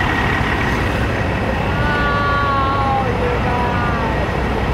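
Steady low rumble of idling trucks, with a drawn-out pitched sound falling slightly in pitch about two seconds in.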